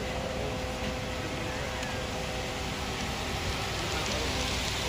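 Wet concrete sliding down a cement mixer truck's chute and pouring into sidewalk forms, a steady rain-like rush, with the truck's engine running underneath.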